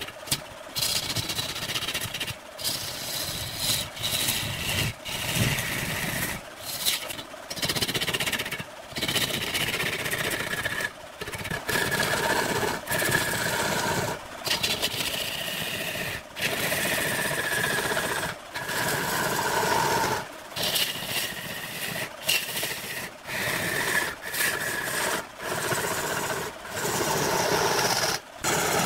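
Hand-held turning tool cutting into a large log spinning on a wood lathe: a continuous rasping, shaving noise over the running lathe, broken by short breaks every second or two as the cut stops and starts.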